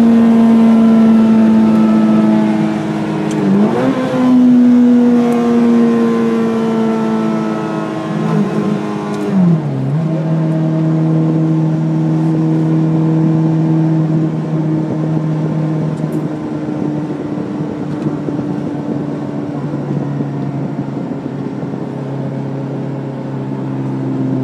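Ferrari F430's 4.3-litre V8 running at speed, its note sinking slowly as the car slows. The pitch dips sharply and recovers twice, a few seconds in and again near ten seconds in, as gears are changed, then the engine runs on steadily at lower revs.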